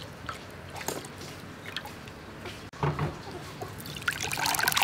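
Hands squeezing wet grated coconut in a steel bowl of water, with faint squelching and dripping. After a dull knock about three seconds in, the coconut milk is poured through a mesh strainer into a bowl, a loud, splashing pour that starts about four seconds in.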